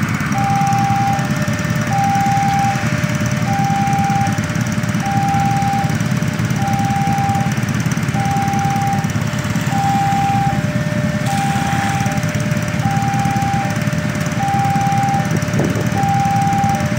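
Railway level-crossing warning alarm sounding while the gate is closed: a repeating electronic two-tone chime, a higher note about every three-quarters of a second alternating with a fainter lower one. Underneath, a crowd of waiting motorcycles idling.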